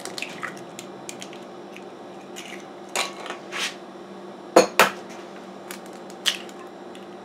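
Eggs being cracked against the rim of a glass mixing bowl: scattered light clicks and taps, with two sharp taps close together a little past halfway and another about a second later.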